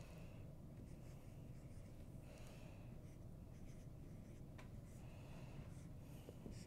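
Faint squeak and scratch of a marker writing on a whiteboard, in several short strokes, over a low room hum.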